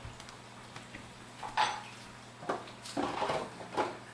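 Kitchen dishes and utensils clattering: a handful of separate knocks and clinks, starting about one and a half seconds in.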